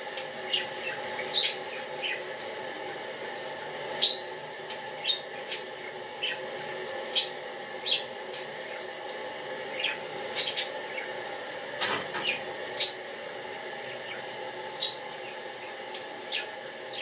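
Washing up by hand at a sink: scattered short clinks and squeaks of crockery and utensils over a steady background hum.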